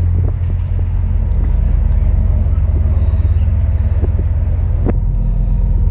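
A loud, steady low rumble with a fast, even pulse, and a few faint clicks scattered through it.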